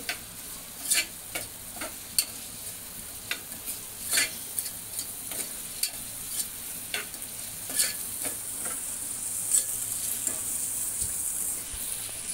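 Crushed onion frying in oil in a small pressure cooker, sizzling steadily while being stirred with a spoon, with irregular clicks and scrapes of the spoon against the pot. The onion is being sautéed toward golden brown.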